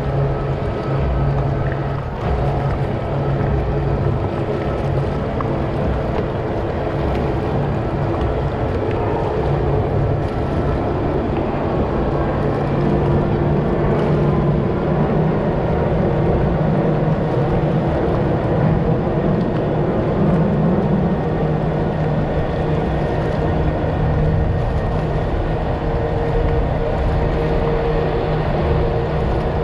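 Jet kayak's motor running steadily under way, holding an even pitch.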